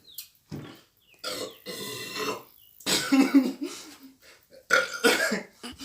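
A man burping loudly several times: a short burp, then three long, drawn-out belches, each about a second long. The burps come from the gas of a large amount of fizzy cola and ginger beer gulped quickly.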